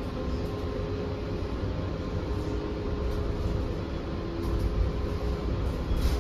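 Inside a New Flyer XE40 electric bus under way: steady low rumble of the ride with a faint steady hum from the drive. A few light knocks and rattles come in over the last couple of seconds, as the rumble grows a little louder.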